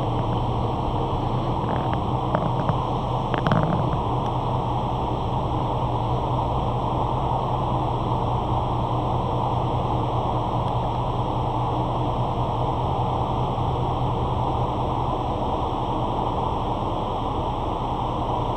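A steady low rumble and hum with an even noise on top, unchanging throughout. A few faint clicks come about two to four seconds in.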